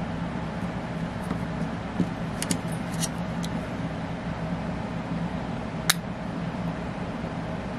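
A steady low machine-like hum, with a few short sharp clicks or taps about two, three and six seconds in.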